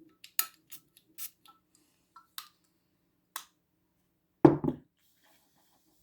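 Metal flip-top cap of a Dunhill Desire Red cologne bottle being clicked open and shut, a run of short sharp clicks, followed by one louder thud about four and a half seconds in.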